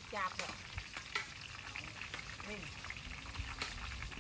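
Food frying in hot oil: a steady sizzle with scattered crackles.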